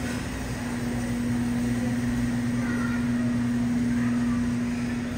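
Steady hum of supermarket refrigeration and ventilation: a constant low drone over a soft rush of air.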